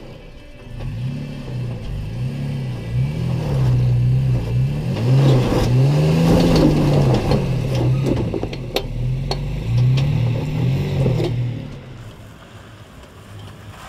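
Toyota Tacoma's 3.5-litre V6 revved hard again and again, its pitch rising and falling, while the truck climbs a steep rock in low range with the manual clutch being slipped under heavy load. Sharp knocks and clicks of tyres and underbody on rock come through the middle, and the engine sound drops away about two seconds before the end.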